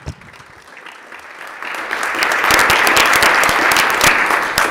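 Legislators applauding in an assembly chamber, the clapping building up over the first two seconds and then holding steady.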